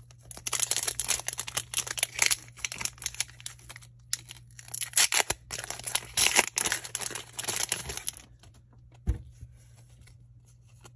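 Foil wrapper of a Pokémon booster pack crinkling and tearing as it is ripped open by hand, in two stretches with a short pause about four seconds in. The crinkling stops about eight seconds in, followed by a single soft knock.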